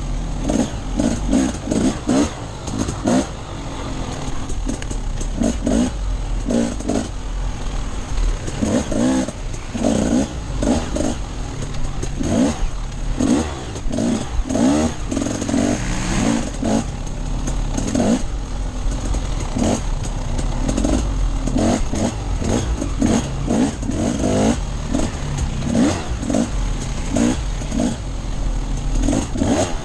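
Off-road dirt bike engine revving up and falling back again and again as the throttle is worked, with mechanical clatter and a low rumble underneath.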